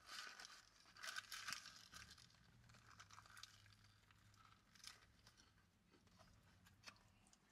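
Faint crinkling of paper burger wrappers in a few short rustles, with a quiet low hum underneath.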